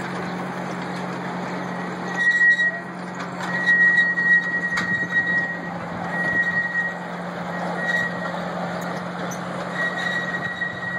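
Miniature ride-on train running along its track: a steady motor hum over rolling wheel noise, with a high-pitched squeal that comes and goes several times and a few sharp clacks from the wheels on the rails.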